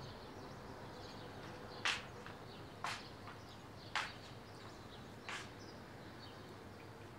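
Four sharp footsteps on a hard floor, about a second apart, over faint bird chirping.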